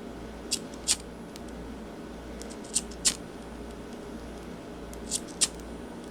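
Handheld lighter clicked in three quick pairs of sharp clicks, about two and a half seconds apart.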